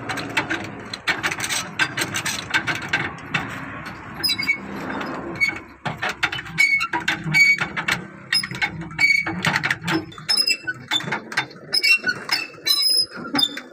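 Hand crank (engkol) being worked during a truck tyre change: a dense, irregular run of ratcheting clicks and metal-on-metal clinks, with short ringing metallic pings in the second half.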